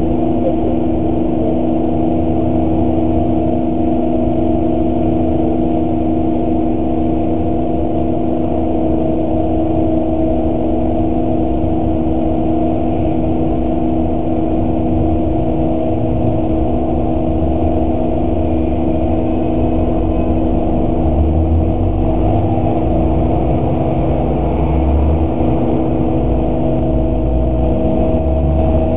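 A bus engine idling steadily, heard from inside the cab, with a low rumble that swells a little in the last several seconds.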